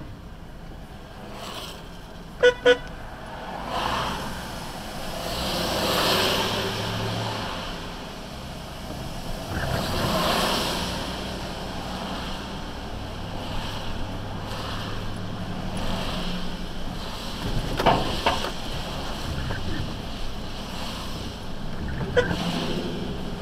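A car driving on a wet city street heard from inside the cabin: steady engine and tyre noise that swells and fades, with two short car-horn toots about two and a half seconds in and a few briefer horn-like blips later.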